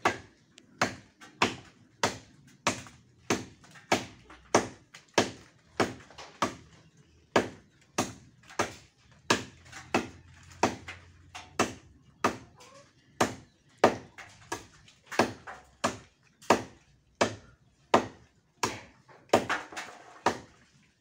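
Blade chopping into a tree branch by hand: sharp, regular strikes, about one and a half a second, kept up throughout.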